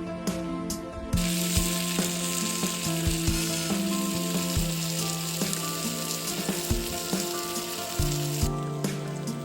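Food sizzling and frying in a hot pan, starting about a second in and dying down near the end.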